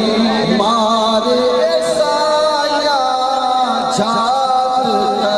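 Male voices singing a devotional chant, with long held notes that waver up and down.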